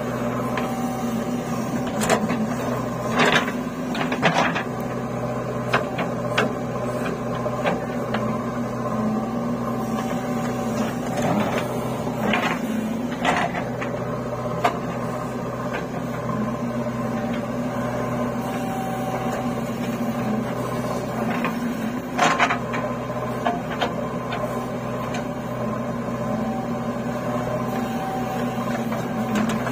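JCB 3DX backhoe loader's diesel engine running steadily as it digs and loads soil, with several sharp knocks and thuds from the bucket and clods of earth landing in a trailer.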